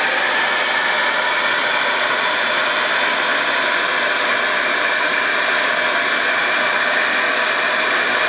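Handheld hair dryer running steadily, a loud, even rush of blown air, used to shrink heat-shrink tubing over freshly soldered wire joints.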